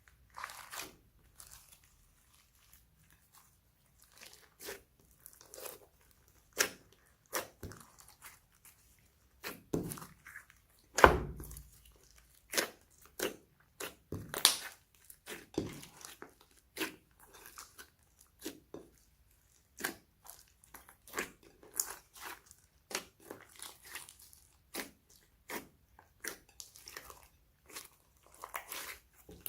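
Slime being squished and pressed by hand, making irregular short crackling pops and squelches, with one louder pop about eleven seconds in.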